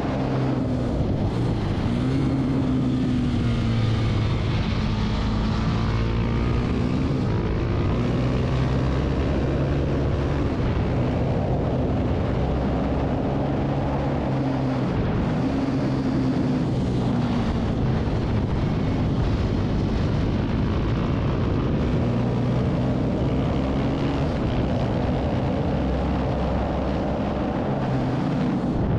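Husqvarna 701 supermoto's single-cylinder engine at race pace, its note rising and falling again and again through the corners and straights, with wind rush.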